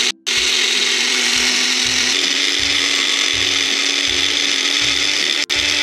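Electric mixer grinder running its small dry-grinding jar, blades whirring steadily as they grind cashews, semolina, desiccated coconut and green cardamom into powder. It stops for a moment just after the start and dips briefly near the end.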